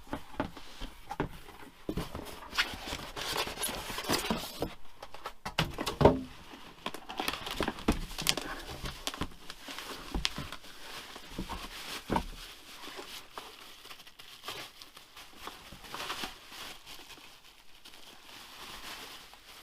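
Packaging rustling and crinkling while parts are unwrapped and handled, with irregular knocks and clunks; the sharpest knock is about six seconds in.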